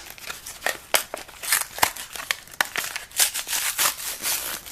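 Blister-pack packaging being handled and pulled open: plastic and cardboard crinkling and crackling, with many sharp clicks and snaps.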